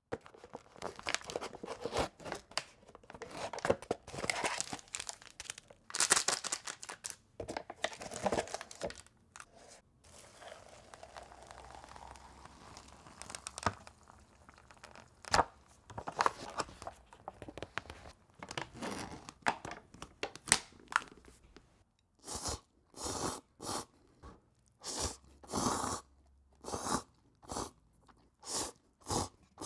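Instant cup noodles being handled and eaten: dense crackling, tearing and crinkling of the cup's lid and packaging, a soft steady hiss for a few seconds around the middle, scattered sharp clicks, then a quick run of short, evenly spaced slurps, about one every half second or so, over the last eight seconds.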